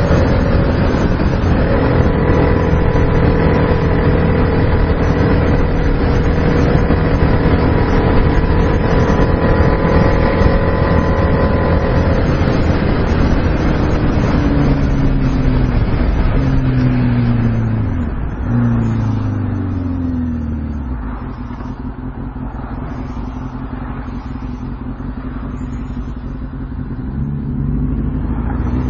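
2006 Kawasaki Ninja ZX-6R 636's inline-four engine running at steady high revs for about the first half, with a rush of wind. The revs then drop in several steps as the bike slows through its gears, settle lower and steady, and climb again near the end.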